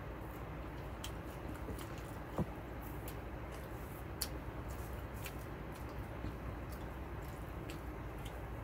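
A person chewing a chicken nugget: scattered small wet mouth clicks over a steady low hum, with one sharper click about two and a half seconds in.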